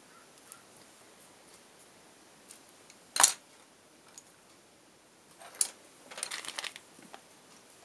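Small hard clicks of colored pencils and tools being handled and set down on a desk: one sharp click about three seconds in, then a lighter click and a short patter of clicks and rattling a little past the middle.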